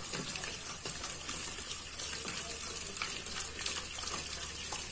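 Cooked dal being churned in an aluminium pot with a wooden dal churner twirled back and forth between the palms: a steady wet sloshing and squelching.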